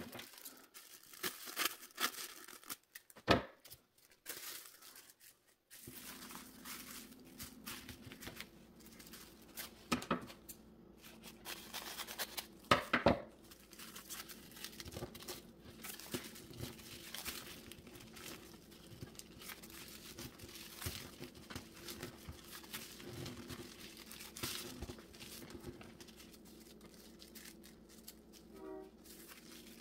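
Pink tissue paper rustling and crinkling as it is handled and folded back and forth into an accordion strip, with irregular crackles and a couple of sharper, louder snaps of the paper, one about three seconds in and one about thirteen seconds in.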